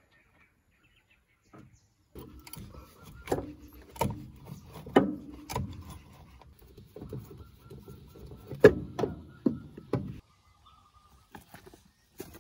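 A series of sharp metallic knocks and scraping from a wrench working the oil filter loose on an excavator's diesel engine. The sound starts about two seconds in and stops about two seconds before the end.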